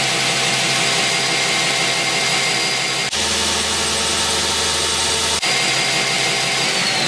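2x72 belt grinder with a 2 hp VFD-driven motor, running with a steady whine and belt hiss. Near the end the whine starts falling in pitch as the speed is turned down on the VFD remote.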